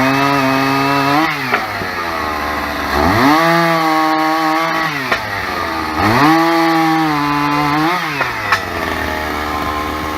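Two-stroke chainsaw sawing a log. It is revved to full throttle three times, each held for about two seconds, then dropped back toward idle.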